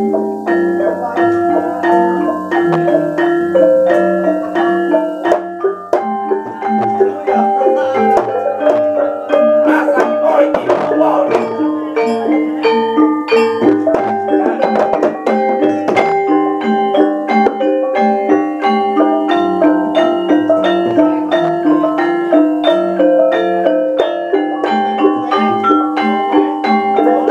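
Javanese gamelan playing: bronze keyed metallophones and gong-chimes strike a steady running stream of notes over a drum. A busier flurry of sharp metallic strikes comes about ten seconds in and again near fifteen.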